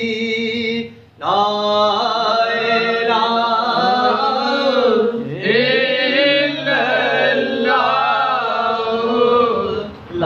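A solo male voice chanting Sufi zikr unaccompanied, in long, wavering melodic phrases with short pauses for breath about a second in, about five seconds in, and near the end.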